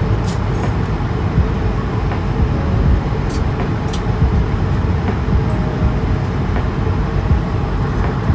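Steady low rushing cabin noise of an Airbus A220-300 airliner in flight, the airflow and engine noise as heard from a passenger seat.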